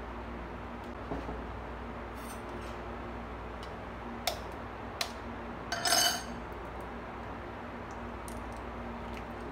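A steel spoon tapping eggshells to crack them over a ceramic bowl: a few scattered sharp clicks, with one louder clink about six seconds in.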